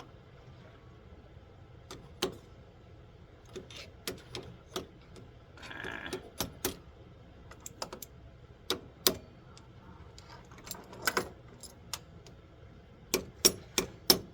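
Hand tools working on an outboard motor's tilt/run lock mechanism: scattered sharp metal clicks and knocks, a brief scrape about six seconds in, then a run of steady taps, about three a second, near the end.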